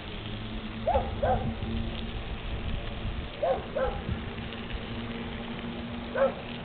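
A dog barking: short barks, mostly in pairs, a few seconds apart, over a steady low hum.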